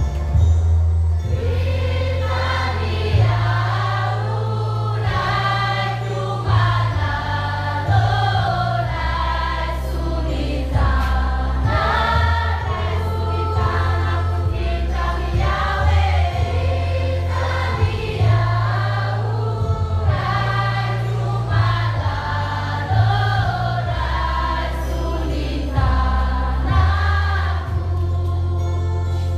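Background music: a choir singing over long, held bass notes that change every few seconds.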